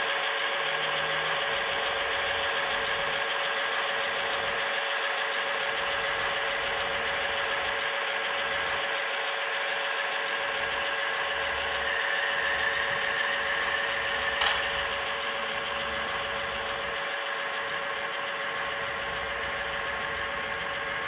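Model train running on a layout: the steady whir of the locomotive's small electric motor and the wagons' wheels rolling on the rails, with a single sharp click about two-thirds of the way through.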